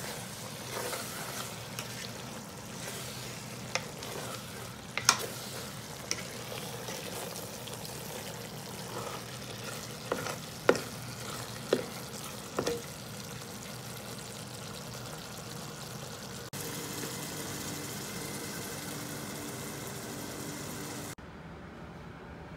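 Taro leaves cooked down in coconut milk sizzling and bubbling in a metal pot while a ladle stirs them, the ladle knocking sharply against the pot several times. The sizzle changes abruptly twice near the end.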